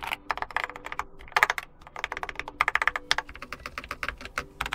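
Fast typing on a Keychron K4 HE keyboard with magnetic Hall-effect Nubia Linear switches: quick runs of key clacks broken by short pauses.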